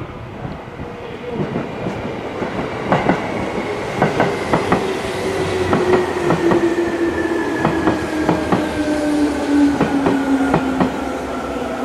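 Seibu Railway electric commuter train running with its motor whine falling slowly in pitch as it slows, and wheels clicking over rail joints.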